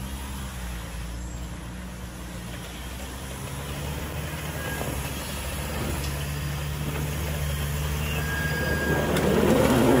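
Mitsubishi L200 pickup's engine pulling steadily under load as it climbs a muddy slope, growing louder as it comes closer and loudest near the end as it passes close by with a rougher rush of noise.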